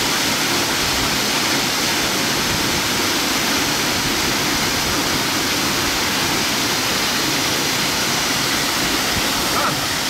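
The 33 m Minoh Falls pouring down its rock face: a steady, unbroken rush of falling water.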